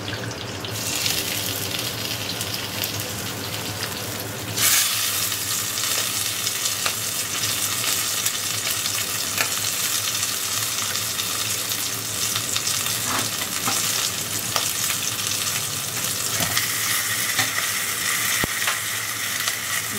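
Marinated chicken leg pieces sizzling in hot oil in a kadai. The sizzle grows louder about a second in and again sharply at about four and a half seconds, with scattered small clicks.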